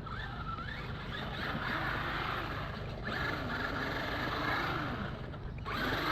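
Traxxas X-Maxx RC monster truck's brushless electric motor whining as the truck is driven, the pitch rising and falling with the throttle.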